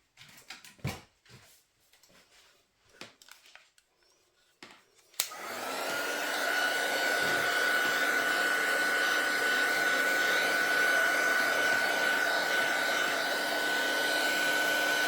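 A few faint handling clicks, then about five seconds in a craft heat gun switches on with a click and runs steadily, a fan rush with a thin high whine, drying wet pearl-powder splatter on cardstock.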